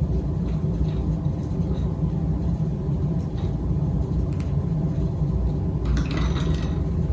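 A steady low hum with several even tones, and a few light clicks about six seconds in.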